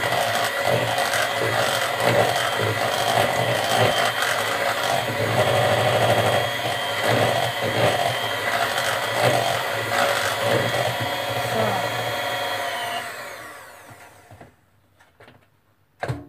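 Electric hand mixer running steadily with its beaters in cake batter, then switched off about thirteen seconds in, its whine falling in pitch as the motor winds down. A single sharp knock near the end.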